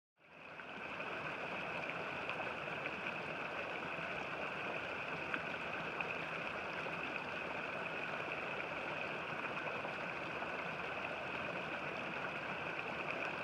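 Small stream running over a low waterfall: a steady rush of water that fades in over about the first second.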